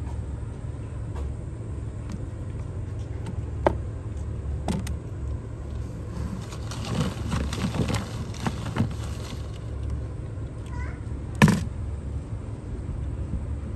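A hand rummaging through folded paper omikuji fortune slips in a clear plastic box, a spell of paper rustling in the middle. A few sharp clicks or taps, the loudest about three-quarters of the way through, over a steady low rumble.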